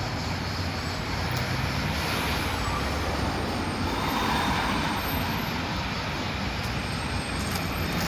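Steady street traffic noise, swelling slightly about halfway through as a vehicle passes.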